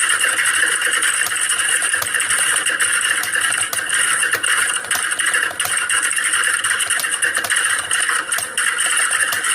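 Computer keyboards being typed on, a dense, steady clatter of overlapping keystrokes as in an exam-hall typing test.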